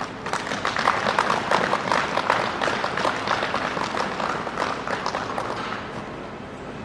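Group of people applauding, which starts suddenly, swells over the first couple of seconds and dies away after about six seconds.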